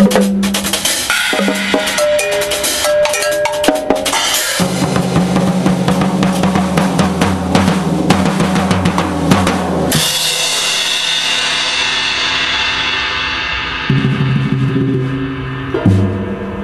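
Two drum kits and percussion playing a fast, dense passage over sustained pitched notes. About ten seconds in it stops on a cymbal crash that rings out and fades, and pitched notes come back in near the end.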